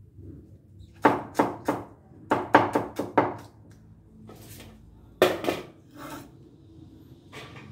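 Large knife chopping shredded cabbage on a wooden chopping board: a quick run of sharp knocks from about a second in, then another short burst of chops a couple of seconds later and a few lighter knocks near the end.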